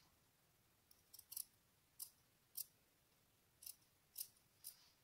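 Scissors snipping through fabric: about eight quiet, short snips at uneven gaps, trimming the excess seam allowance close to the stitching of a sewn fabric face mask.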